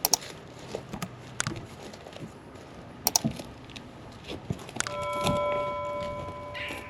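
Metal tools and car parts clinking and knocking during brake work. About five seconds in comes a clear, steady ringing of several pitches, lasting about two seconds.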